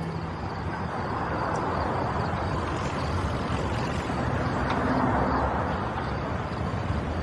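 A steady rushing noise with no clear tones, swelling a little about five seconds in.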